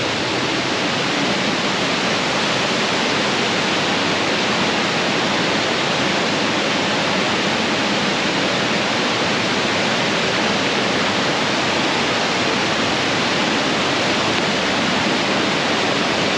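Waterfall close by: a loud, steady rush of falling water that holds even throughout, with no breaks or changes.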